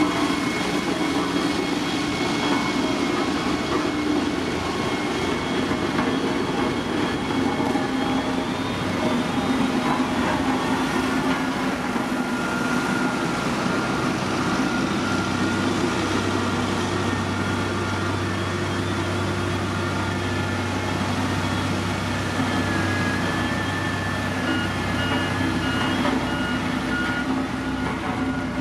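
Heavy diesel construction machinery running steadily under load, with a low engine drone and high whining tones over it. Near the end there is a short run of repeated beeps.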